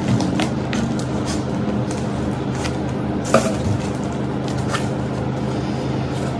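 Cardboard shipping box being pulled and torn open by hand: scattered crackles, rustles and clicks, with one sharper crack a little past the middle, over a steady low hum.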